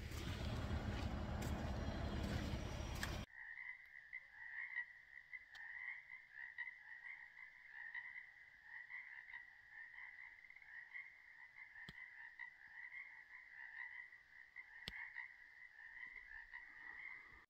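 Frogs chorusing: a faint, steady, finely pulsing trill that goes on without a break. Before it, about three seconds of loud steady noise cut off abruptly, and two sharp clicks sound late on.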